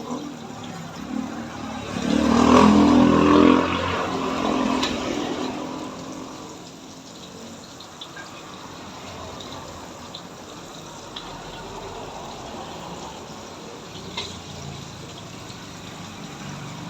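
Banana turon frying in hot oil, a steady sizzle. A louder humming sound with a steady pitch rises over it from about two seconds in and fades by about five seconds.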